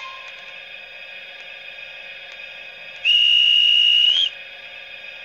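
A Märklin HO-scale Re 4/4 II model locomotive's sound decoder plays a single high, steady whistle tone about three seconds in. The tone lasts about a second and rises slightly just before it cuts off. Under it runs the steady hum of the standing locomotive's running sounds, heard through the model's small loudspeaker.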